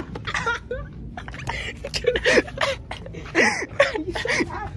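Indistinct young male voices making short vocal sounds and mumbled words, with scattered clicks and rustles in between.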